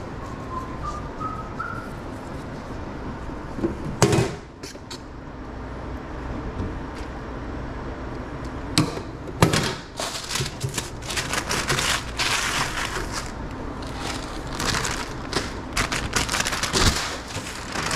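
A sharp knock about four seconds in, then the crinkling rustle of a brown paper take-out bag being opened and handled over a stainless-steel counter, with scattered clicks of utensils and lids.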